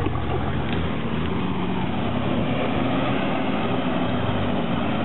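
Off-road 4x4 engine running steadily at low revs, a continuous low drone.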